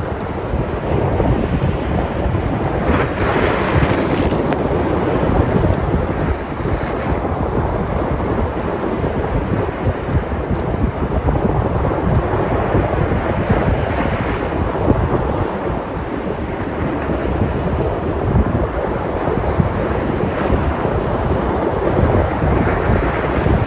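Sea surf: waves breaking and washing up, with a brighter surge of spray about three seconds in and another around the middle. Wind buffets the microphone with a low, uneven rumble throughout.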